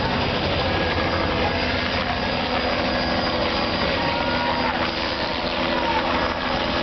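Steady engine drone with a few level low tones, over a constant rushing noise.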